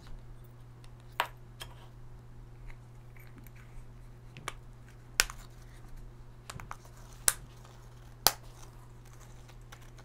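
Sharp clicks of a plastic remote-control key fob case being handled and snapped back together. There are four louder clicks, the first about a second in and the rest in the second half, with smaller ticks between, over a steady low hum.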